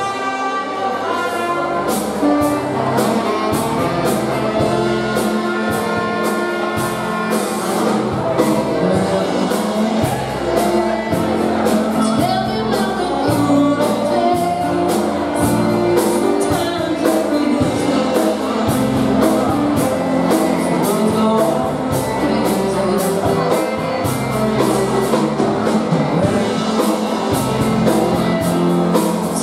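Live polka band playing a waltz on accordion, trumpet, saxophone and drums, with a woman singing.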